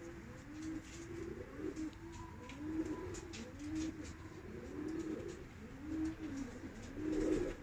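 Pigeons cooing, low rolling coos repeating about once a second, with faint light ticks over them.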